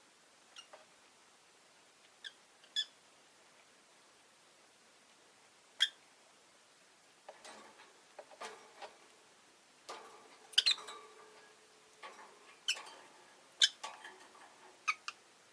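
Rosy-faced lovebirds giving short, sharp chirps. A few come in the first seconds, and they grow more frequent from about halfway through.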